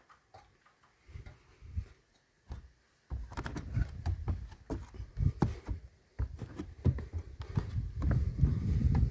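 A few faint knocks, then from about three seconds in a dense run of low rumbling handling noise with many sharp knocks and clicks.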